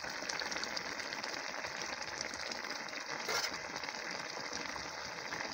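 Fish curry cooking in a steel pan, a steady quiet sizzle and bubbling with fine crackle. There is a brief louder burst about three seconds in.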